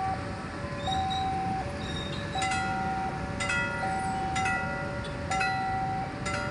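Railroad crossing warning signal sounding: an electronic two-tone alarm alternating between a higher and a lower note about every three-quarters of a second, with ringing bell-like strikes over it, warning that a train is approaching as the barrier comes down. Motorcycle engines run underneath.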